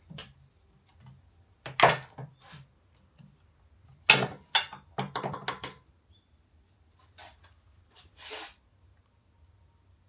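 Irregular knocks and clatters of hard objects being handled and set down. The loudest come about two seconds in and again in a cluster from about four to six seconds in, with two shorter ones near the end.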